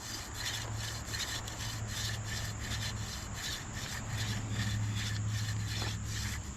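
Hand drill friction fire: a dog fennel spindle spun back and forth between the palms, drilling into a hickory fireboard, making an even rhythmic wooden rubbing of about three strokes a second as the board is worked up toward an ember.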